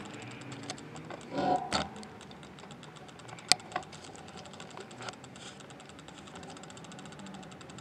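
A few irregular clicks and knocks from walking with a handheld camera, over a faint steady outdoor hiss; the sharpest click comes about three and a half seconds in.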